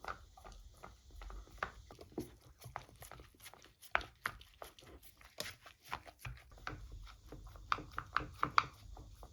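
Beagle eating, a quick run of wet licking and chewing clicks and smacks, over the steady high drone of cicadas.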